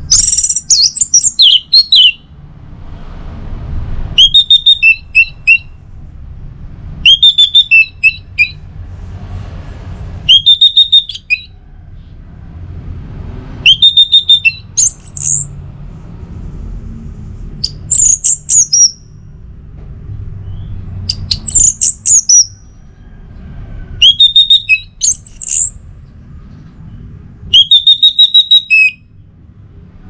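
Orange-headed thrush singing: nine short phrases of quick, chattering notes mixed with high whistles, repeated about every three seconds.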